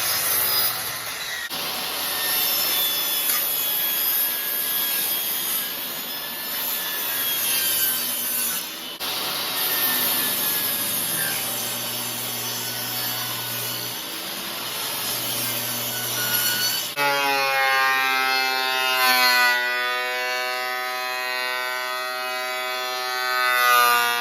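Woodworking power tools milling rough boards, in several short clips that change abruptly: blades cutting through wood, then in the last part a steady motor whine with a strong pitch.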